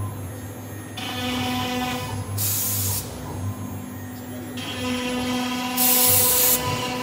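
1325 CNC router engraving an MDF sheet: its spindle and drive motors whine in steady tones that shift in pitch as the gantry moves, with two short, loud bursts of high hiss about two and a half and six seconds in.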